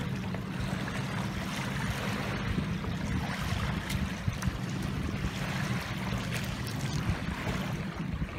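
Steady wash of shallow lake water at the shoreline, with light splashes from feet wading, over a constant low rumble.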